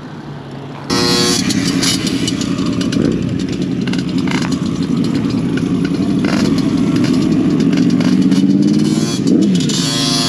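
A motorcycle engine running close by. It comes in loud about a second in, then climbs and drops in pitch with the throttle, with a quick dip and rise near the end.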